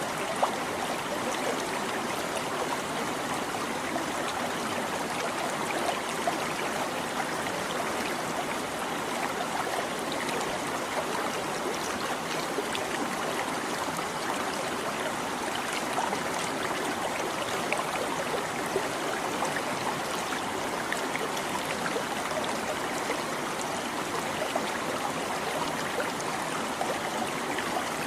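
Small stream babbling and trickling steadily, with tiny splashes and gurgles flecking the even rush of water.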